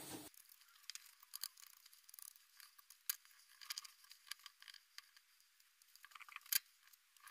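Faint, scattered clicks and scrapes of a knife and fin shears cutting a rainbow trout on a wooden board, with a sharper click about three seconds in and another near the end.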